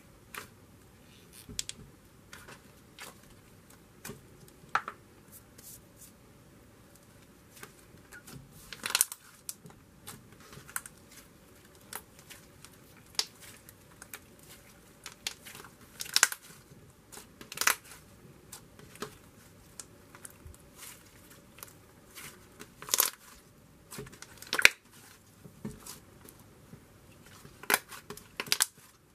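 Thick glossy slime with soft clay mixed into it, being squished and kneaded by hand. It gives irregular crackly clicks and pops, with several louder pops scattered throughout.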